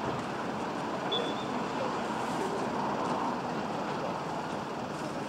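Steady outdoor background noise with a short, high referee's whistle blast about a second in, as play restarts.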